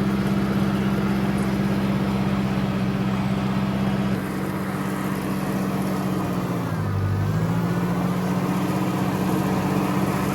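Ford farm tractor engine running steadily. About seven seconds in, its note sags briefly and then comes back up.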